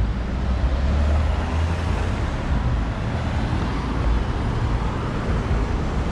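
City street traffic: cars driving through an intersection, a steady rumble of engines and tyres with no single standout event.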